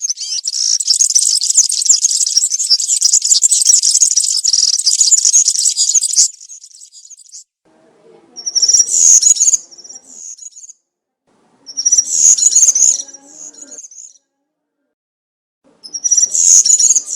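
European serin singing its fast, high-pitched, jingling song: one long unbroken phrase of about six seconds, then three short phrases a few seconds apart.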